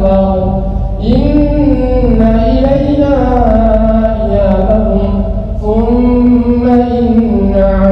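A man's voice recites the Quran in Arabic during congregational prayer: a solo melodic chant in long, held, ornamented phrases. It pauses briefly for breath about a second in and again near six seconds.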